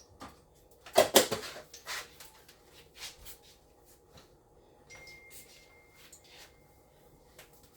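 Kitchen clatter: cookware and utensils knocking and clinking, with a loud cluster of strikes about a second in and scattered lighter knocks after.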